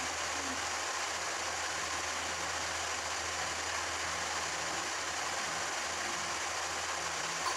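Steady background hiss with a low hum underneath, unchanging throughout; no speech.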